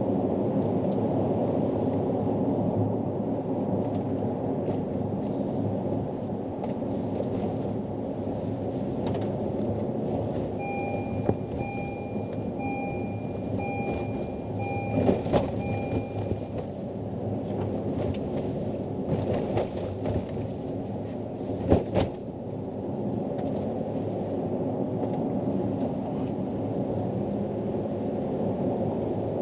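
A car's engine and road noise, with knocks and rattles from rough road, the sharpest about three-quarters of the way through. Near the middle, a series of short electronic beeps repeats evenly for about six seconds.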